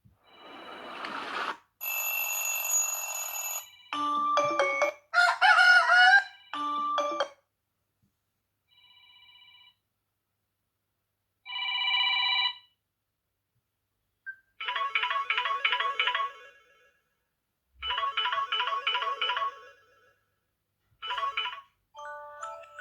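A run of short smartphone alarm and ringtone previews played one after another: about eight electronic tunes, chords and quickly repeated chime patterns, each lasting a second or two and cut off abruptly into silence.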